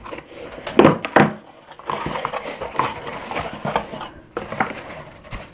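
Cardboard shipping box being handled: its flaps folded open and the packed item slid out, with two sharp knocks about a second in and then irregular cardboard scraping and rustling.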